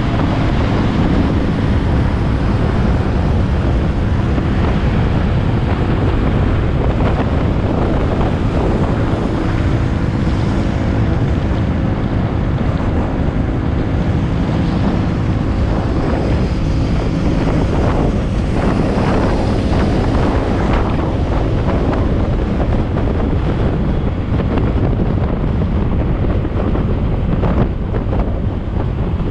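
Loud, steady wind rushing over the microphone, with a faint steady hum beneath it.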